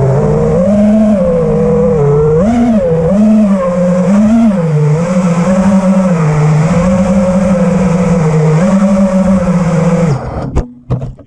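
FPV freestyle quadcopter's brushless motors and propellers whining, the pitch swelling up and down with throttle. The whine cuts off about ten seconds in as the motors stop, followed by a couple of knocks.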